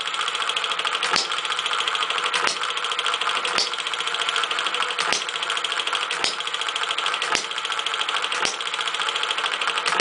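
Homemade model six-cycle hit-and-miss gas engine with a flyball governor running: a fast, even mechanical clatter, broken by a sharp pop about once every second or so as it fires.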